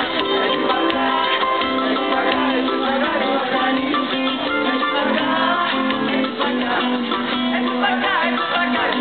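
Live samba band music, with plucked guitars leading over percussion and a singer's voice.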